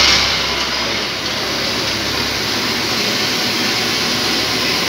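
Jalebi frying in a wide pan of hot oil: a steady, even sizzle, a little louder at the very start.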